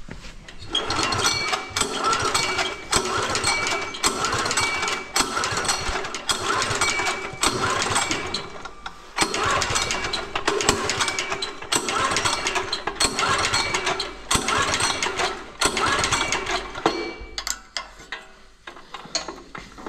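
Tiller's 178F single-cylinder diesel engine being turned over, with a regular pulse about once a second.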